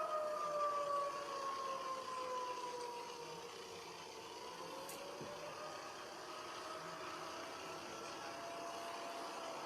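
Outdoor tornado warning siren wailing on one tone. It grows fainter as its pitch slides down over the first few seconds, then rises a little and holds.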